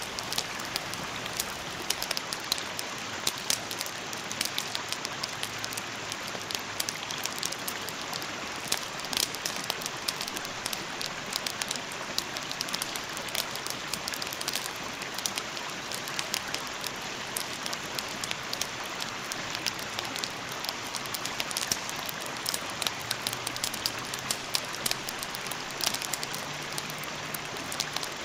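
Steady rain: an even hiss dotted with many small, sharp drop clicks. A faint low hum comes in over the last few seconds.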